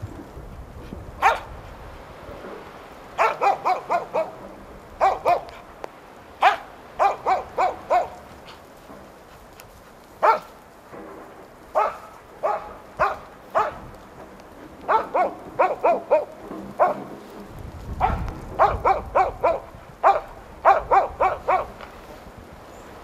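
Moose-hunting dog barking in quick runs of several barks with short pauses between them: a loose hunting dog baying at a moose it has found.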